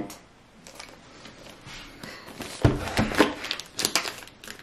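Plastic shrink wrap on a packaged meal box crinkling and crackling as fingers pick and pull at it to open it. It comes in short bursts in the second half.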